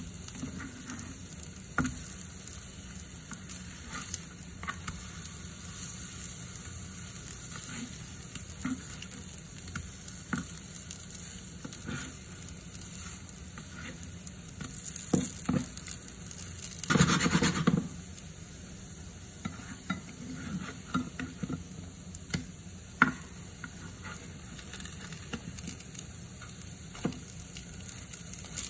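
Potato pancakes frying with a steady sizzle in a nonstick pan, with scattered short taps and scrapes of a spatula as they are turned. A louder, fuller rustle lasting about a second comes a little past halfway.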